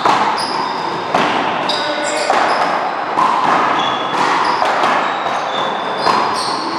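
A one-wall paddleball and handball doubles rally: a rubber ball smacks off hands, a paddle and the wall in a string of sharp hits, about one a second, with sneakers squeaking on the court floor between them.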